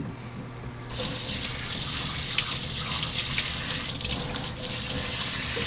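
Kitchen faucet turned on about a second in, its spray running steadily over a cleaned blue crab and splashing into a stainless steel sink.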